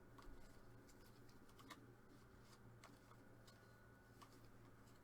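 Faint, scattered light clicks and ticks of 2021 Topps F1 trading cards being flipped and slid through the hands one by one, over near silence.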